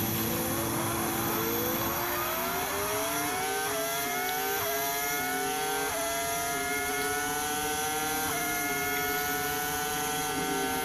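The Ferrari F2004's V10 and the 2015 Ducati MotoGP bike's V4, heard together at full throttle. Each climbs steadily in pitch and drops sharply at every upshift, a string of gear changes one after another as both accelerate flat out.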